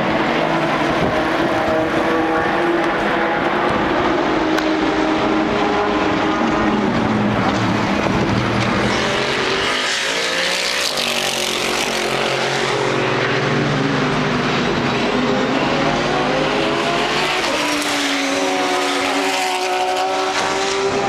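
Race car engines passing one after another in a continuous stream, several engines overlapping, each pitch rising and falling as a car comes and goes. The loudest pass-by comes about halfway through.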